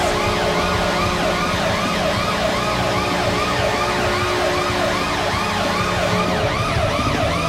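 Electronic siren sound effect celebrating a goal, wailing up and down about three times a second over a steady low tone.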